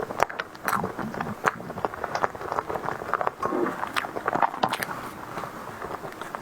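Close-miked eating of a soft tiger skin dessert: irregular wet mouth clicks and smacks of biting and chewing.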